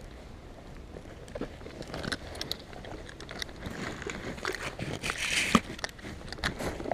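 Footsteps crunching and rustling over rough ground, with scattered crackles and one sharp click about five and a half seconds in.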